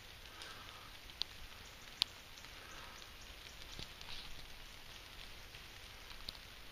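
Faint rustling and crunching of dry leaves on the forest floor, like footsteps through leaf litter, with two sharp clicks about one and two seconds in.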